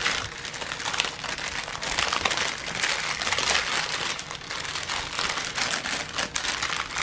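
Clear plastic packaging bag crinkling as it is handled, a dense run of fine crackles.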